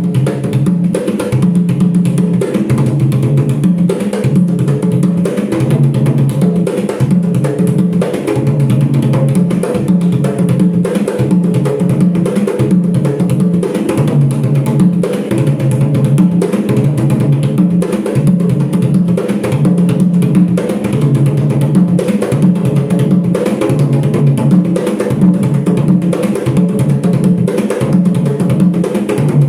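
Atabaque hand drum playing a steady capoeira rhythm, low drum tones alternating without a break.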